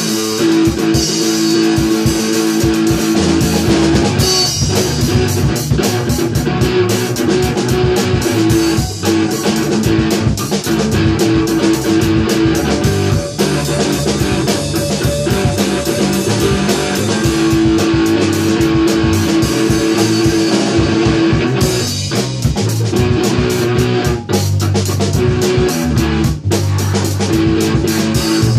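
Rock band playing live: guitar, bass guitar and drum kit together, with busy drumming and cymbals under a held note that comes back phrase after phrase.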